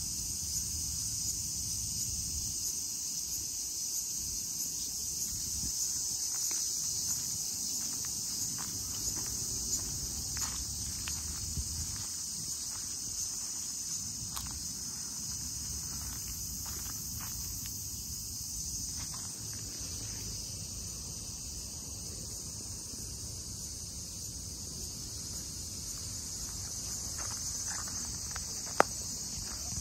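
A steady high-pitched chorus of insects over a low rumble, with scattered light ticks through the middle and one sharp click near the end.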